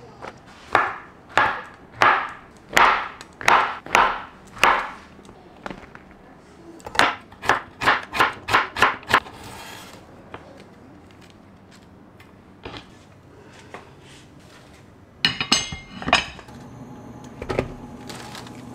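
Kitchen knife chopping on a wooden cutting board. A slower run of strokes comes first, then a quicker run of about five a second. Near the end, after a quiet stretch, there is a brief clatter of ringing dishes.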